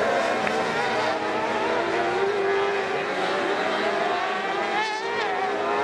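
Several autocross buggy engines racing at once on a dirt track. Their overlapping pitches keep rising and falling as the drivers come on and off the throttle, with a quicker warble of revs about five seconds in.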